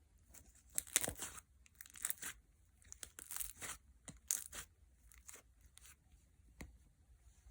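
Clear gel slime being squeezed and stretched, giving irregular wet pops, squelches and crackles that thin out toward the end.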